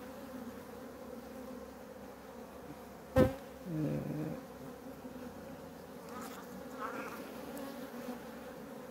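Honey bees buzzing in a steady hum over an open hive, a colony the beekeeper finds bad-tempered and aggressive. A single sharp knock about three seconds in.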